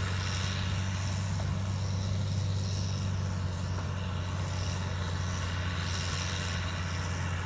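Heavy diesel engine running steadily at an even speed, a deep unchanging hum with no revving.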